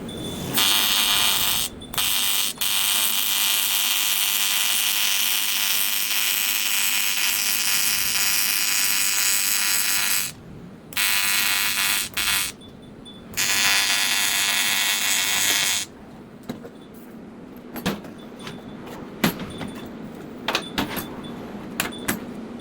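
AC TIG welding arc on aluminium, a harsh steady buzz that starts about half a second in, breaks off briefly a few times and stops about 16 seconds in. After it come scattered faint clicks and taps.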